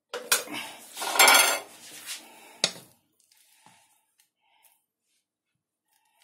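Stainless steel saucepan handled and a spatula scraping thick pastry cream out of it, clattering for about three seconds and ending in a sharp knock, then only a few faint taps.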